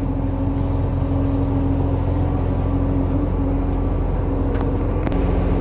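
A boat's engine running steadily with a low, even hum; the engine note shifts slightly about five seconds in.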